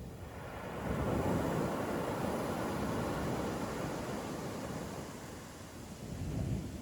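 Ocean waves breaking on a beach: a wash of surf swells up about a second in, holds for a few seconds and fades, with a smaller surge near the end.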